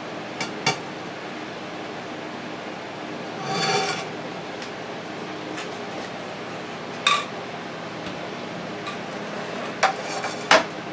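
Frying pan and kitchen utensils clinking and knocking as excess bacon grease is poured off. A few sharp clinks, and a brief rushing noise about three and a half seconds in, all over a steady background hiss.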